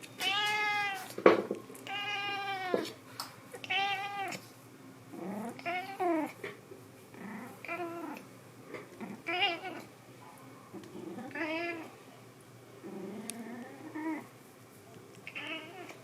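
A cat meowing over and over: about nine drawn-out meows, each rising and falling in pitch, one every second or two. A sharp click cuts in about a second in.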